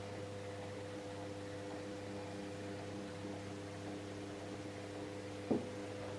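Steady low electrical hum over a faint hiss, with one short knock about five and a half seconds in.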